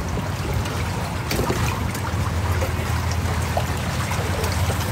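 Water flowing and lapping against a kayak hull in a strong current: a steady low rumble with small scattered splashes and ticks.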